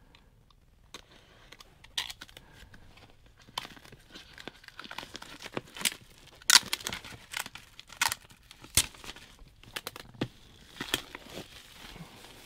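Clear plastic shrink wrap being torn and peeled off a boxed record set by hand, crinkling and crackling in irregular bursts after a quiet first second, with the sharpest tears about six and a half and nine seconds in.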